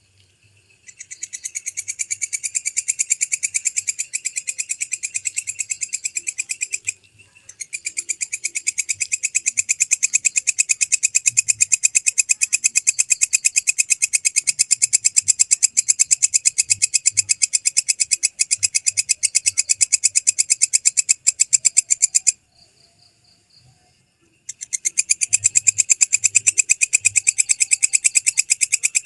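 Walang kecek (belalang kecek) bush cricket stridulating: long, high-pitched trills of rapid, evenly spaced pulses that start about a second in and break off twice, once briefly and once for about two seconds before resuming.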